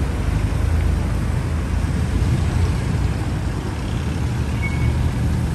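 Steady low rumble and road noise of a car driving.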